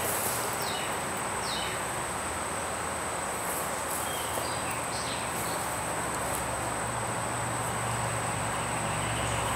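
Insects droning steadily with a high, even buzz, with short falling bird calls every second or two.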